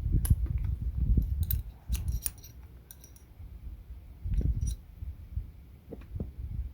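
Small metallic clicks and taps as a thin screwdriver works a knocked-out piece of aluminium free through a slot, with low handling knocks. The sharpest clicks are bunched about one and a half to two and a half seconds in.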